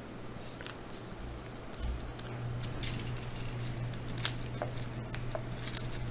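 Small clicks and light rustles of fingers working a soft polymer clay fin onto a clay tail on patty paper, with one sharper click about four seconds in, over a steady low hum.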